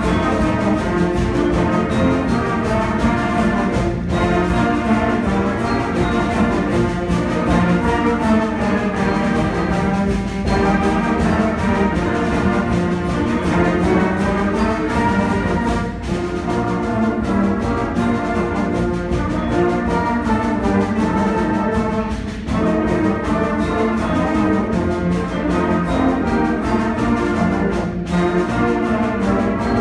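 Middle school concert band playing together, brass prominent over clarinets and saxophones, with brief dips between phrases every few seconds.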